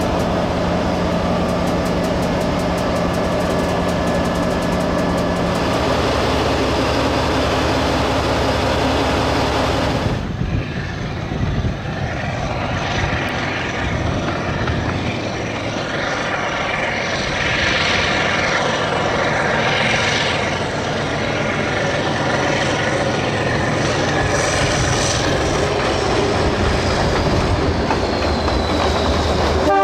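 1968 Mitsubishi-built Dj class diesel-electric locomotive: first its engine running steadily as heard from inside the cab, the note changing about six seconds in. Then, after a sudden change about ten seconds in, the locomotive and its train of carriages pass by, wheels clicking on the rails.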